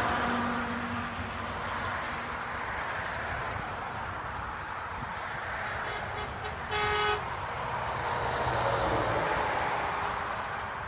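A Volvo VNL semi tractor gives one short toot on its Hadley H0640RP air horn about seven seconds in, then its engine and tyres pass by. A receding dump truck's engine fades at the start.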